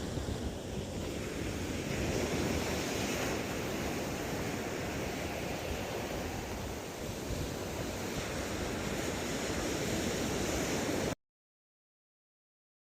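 Ocean surf washing steadily, with wind on the microphone. The sound cuts off suddenly to dead silence near the end.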